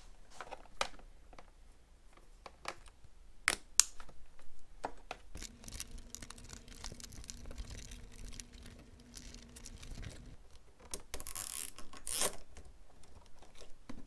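Scattered small clicks, taps and crinkling rustles of hands handling wiring parts and plastic, with a steady low hum for about five seconds in the middle.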